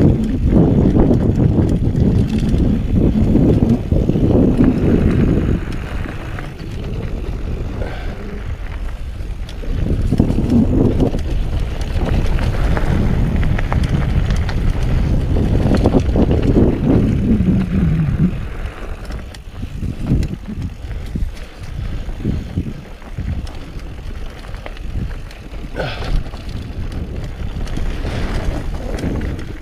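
Mountain bike ridden along a dirt trail, with rumbling tyres and wind rushing over the microphone. The noise eases off about two-thirds of the way through.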